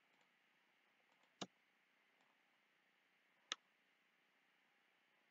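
Two sharp computer mouse clicks about two seconds apart, with a few faint ticks between them, over near silence.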